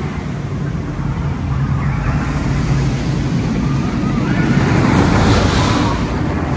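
Skyrush, an Intamin steel roller coaster, with its train rushing along the track overhead: a steady rumbling roar that builds to a peak about five seconds in, then eases slightly.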